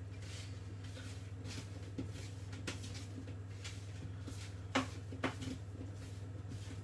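Potato wedges being moved and tossed by hand on a metal baking tray: a few soft knocks and clicks, the loudest just under five seconds in, over a steady low hum.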